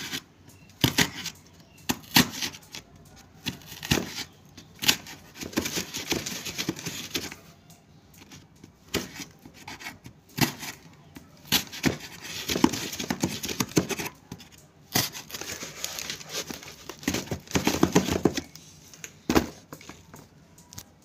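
A screwdriver being pushed and twisted through the wall of a cardboard box to bore a hole: irregular bouts of tearing, crinkling cardboard with sharp cracks.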